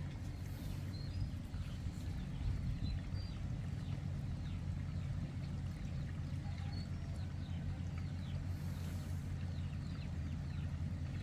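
Birds chirping: many short, high, downward-sliding calls, thicker in the second half, over a steady low rumble.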